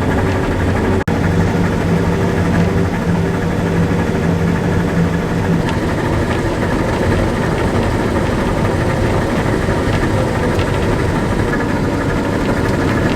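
Claas Lexion combine harvester running steadily while harvesting soybeans: a constant engine and machine drone with a low hum that drops away about six seconds in.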